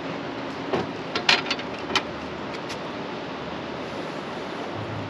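A landing net's long handle is set down on the boat and knocks against it: a quick clatter of five or six sharp knocks over about a second. Steady wind and water noise runs under it.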